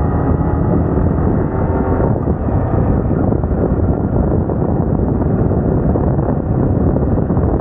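Yamaha R15M's 155 cc single-cylinder engine running as the bike is ridden, mixed with heavy wind rumble on the microphone.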